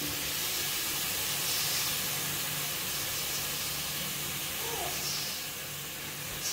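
Freshly drained sliced button mushrooms and vegetables sizzling in butter in a kadai, a steady hiss.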